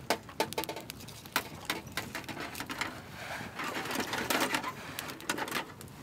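Wood fire crackling and snapping in a steel fire pit, with light metal clinks as a wire grill grate is set down over it.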